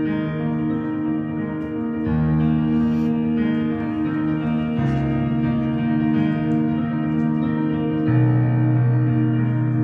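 Yamaha CP4 stage piano playing slow, held chords, with the chord changing about every two to three seconds.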